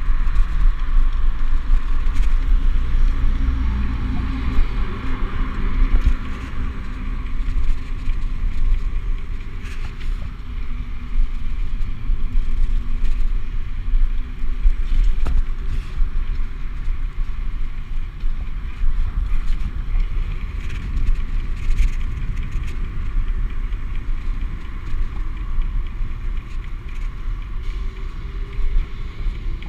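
Wind buffeting the microphone of a camera riding on a moving BMX bike, with tyre noise on the pavement throughout. Road traffic hums past in the first several seconds.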